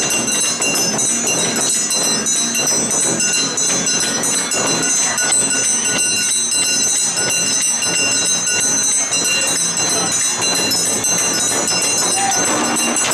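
Awa Odori festival band playing: large hand-held taiko drums beaten with sticks in a continuous driving rhythm, with a handheld metal gong (kane) ringing over them.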